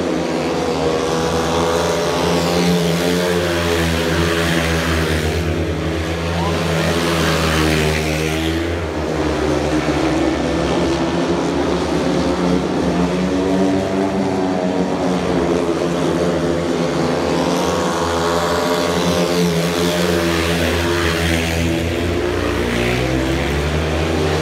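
Several speedway bikes racing, their 500 cc single-cylinder methanol engines running hard together. The pitch swells and drops again and again as the riders throttle through the bends and down the straights.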